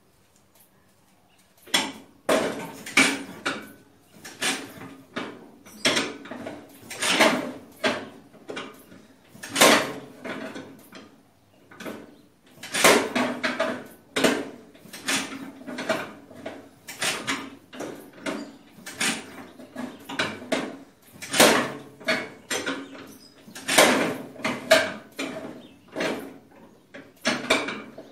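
A Farmall Super A's four-cylinder engine being hand-cranked from cold at the front crank: repeated metallic clanks and compression strokes, roughly one or two a second, starting about two seconds in, with a short pause near the middle. The engine turns over but does not catch.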